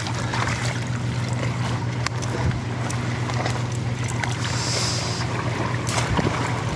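Steady low motor drone under a haze of wind noise, with a short hiss about four and a half seconds in.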